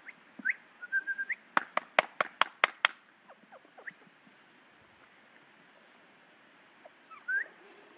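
Seven-week-old puppies whimpering, with short, high, rising whines and squeaks. About a second and a half in comes a quick run of about eight sharp clicks.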